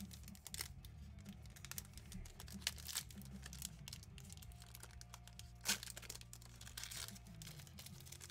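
Foil wrapper of a football trading-card pack crinkling and being torn open by hand: a run of irregular sharp crackles, the loudest about three quarters of the way through, over a faint low hum.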